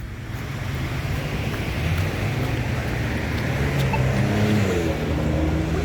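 Road traffic: motor vehicles running past the intersection, growing louder over the first second, with an engine's pitch rising and then falling around the middle.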